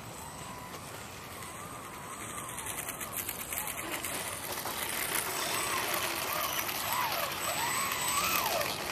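Motors of small R/C racing airplanes whining overhead, the pitch rising and falling with each pass, faint at first and growing louder from about halfway in as the planes come in low.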